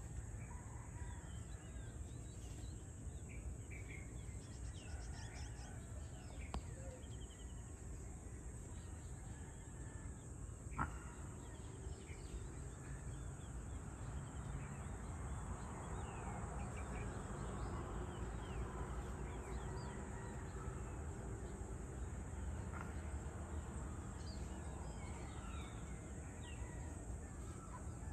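Evening outdoor ambience: scattered short bird calls and chirps over a steady high insect drone and a constant low rumble. A single sharp click comes about a third of the way in.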